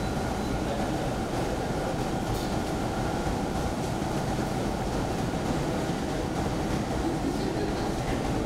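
A steady, even rumble of background noise with a faint hum, unchanging throughout.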